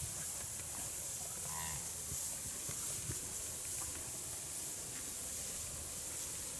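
An Angus-cross feeder calf mooing once, briefly, about one and a half seconds in, over a steady background hiss.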